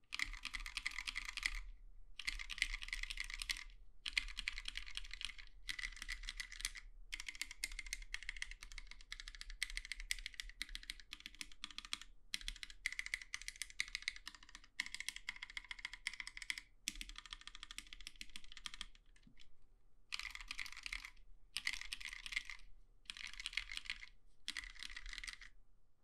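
Typing on a Plaid 40% keyboard with lubed Novelkeys Cream linear switches and DSA-profile keycaps: fast runs of keystroke clacks broken by short pauses every second or two.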